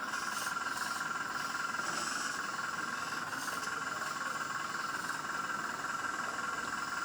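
Small electric hydraulic pump of a 1/14 scale RC excavator running steadily, a constant whine with hiss.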